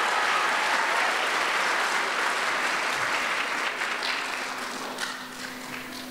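Audience applauding, dying away over the last two seconds.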